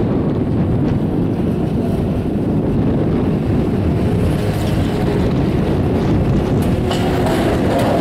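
Wind buffeting the microphone over the rolling rumble of a detachable chairlift as the chair runs into the top terminal. A few sharp clicks and a steady hum come in near the end.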